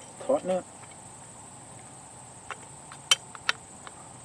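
Crickets chirring steadily in one high tone, with a few sharp clicks in the second half as the fencing wire and tie-down are handled.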